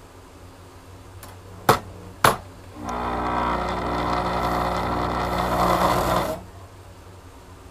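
Two sharp clicks, then a small motor runs steadily for about three and a half seconds and stops abruptly.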